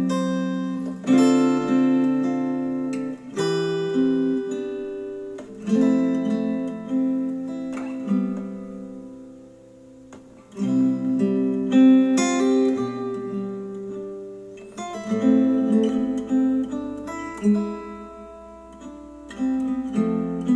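Acoustic guitar music played back through Polk Audio bookshelf speakers: chords plucked every second or two and left to ring, with a quieter stretch about halfway through.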